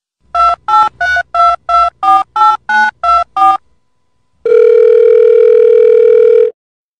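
Telephone keypad dialing tones laid on as a sound effect: ten quick beeps, each a two-note chord, then one long steady ring tone of about two seconds.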